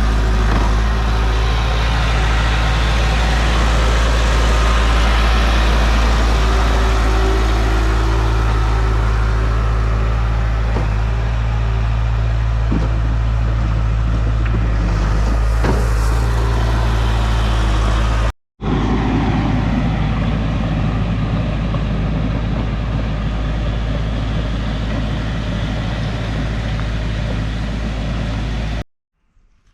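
Heavy diesel equipment engine running steadily under load, with a deep, even drone. It cuts out abruptly for an instant partway through and resumes slightly quieter, then stops abruptly shortly before the end.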